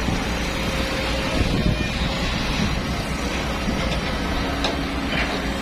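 An engine running steadily with a continuous low rumble, typical of the truck-mounted lifting equipment on a job site.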